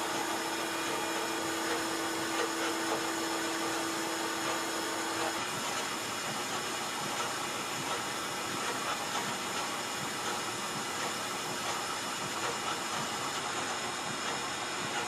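Paint spray gun hissing steadily as compressed air sprays primer. A low steady hum underneath stops about five seconds in.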